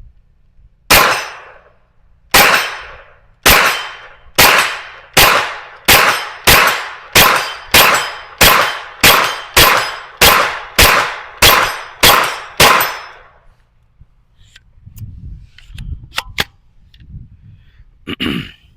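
Smith & Wesson FPC 9mm carbine fired semi-automatically with 115-grain rounds: about seventeen shots, the first few more than a second apart, then quickening to nearly two shots a second, each with a short echoing tail. A few faint metallic clicks and clinks follow after the string ends.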